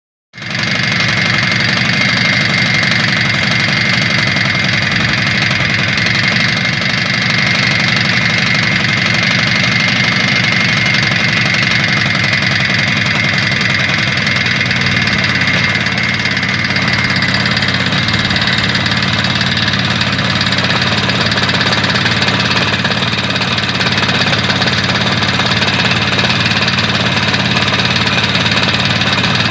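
Engine running steadily at idle with a persistent knock. The engine has been fully rebuilt with new pistons, and the owner cannot tell what is causing the knock.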